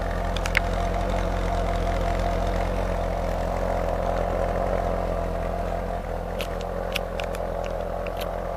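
Chevrolet Corvette Grand Sport's LS3 V8 idling steadily, heard close to its quad exhaust tips.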